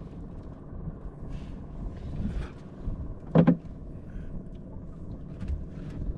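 A steady low drone, with one sharp knock about three and a half seconds in.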